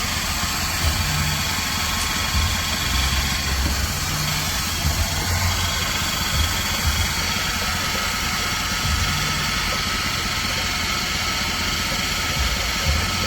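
A motor running steadily: an uneven low rumble with thin, steady high whining tones above it.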